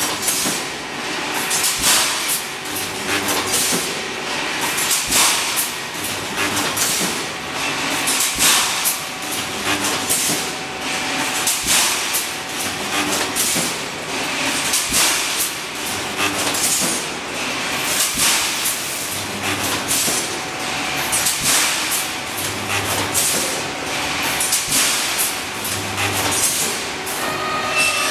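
Pneumatic wire mesh welding machine running, its welding heads coming down on the rebar crossings in a repeating series of sharp clanks, more than one a second, over a steady hiss.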